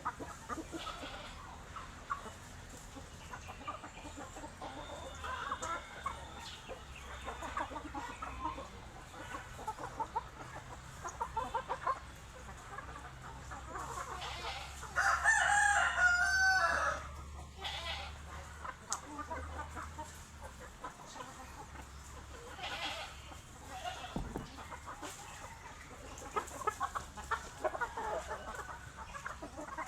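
A flock of chickens clucking throughout, with a rooster crowing once about halfway through, the loudest sound.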